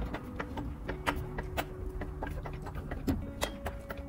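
Irregular light metallic clicks and knocks as a VW Beetle swing-axle gearbox is raised on a jack up into the chassis.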